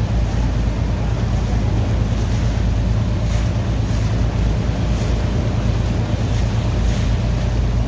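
A boat's engine running steadily under way, with water splashing and rushing past and wind buffeting the microphone.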